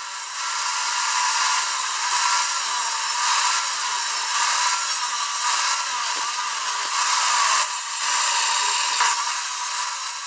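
Power tool working ash wood, most likely shaping or rounding a handle. Its motor pitch wavers up and down as it bears into the wood.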